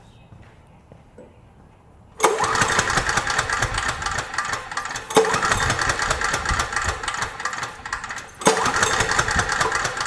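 Briggs and Stratton generator engine being cranked over with its spark plug out, to check the plug for spark; the cranking starts suddenly about two seconds in and comes in repeated bouts.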